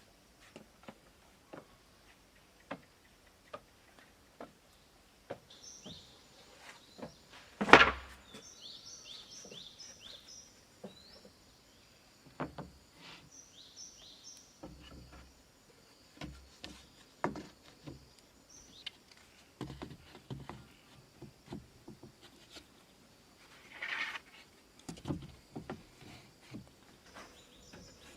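Irregular knocks and taps, one much louder about eight seconds in, with a bird chirping in short repeated notes in the background.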